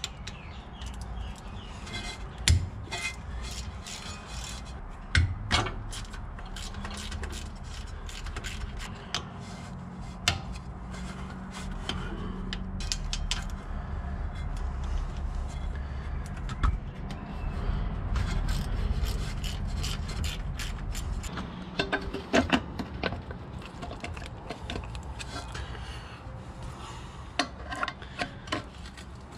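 Spanner work on a rear drum-brake axle: metal tools clinking and scraping on the brake line fittings and axle retaining bolts, with scattered, irregular sharp knocks over a steady low hum.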